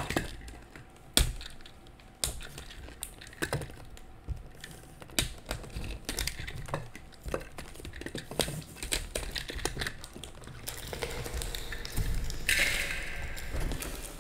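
Plastic shrink wrap on a card-game box being picked at and peeled off: scattered sharp crackles and clicks, turning to a louder, denser crinkling in the last few seconds as the wrap tears away.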